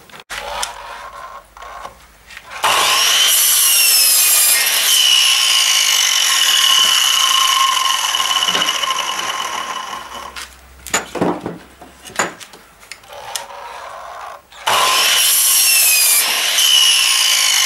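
Metabo sliding mitre saw spinning up with a rising whine and cutting through wooden laths. The first run starts about three seconds in and winds down, then come a few knocks as the wood is handled, and a second cut starts near the end.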